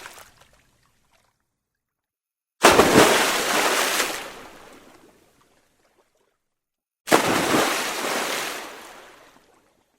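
Two separate water sound effects, each starting suddenly and fading out over two to three seconds, with silence between them.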